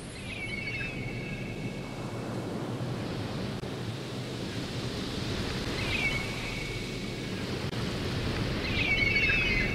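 Title-sequence sound effects: a steady rushing noise with short shimmering sparkle tones about half a second in, around six seconds, and again near the end.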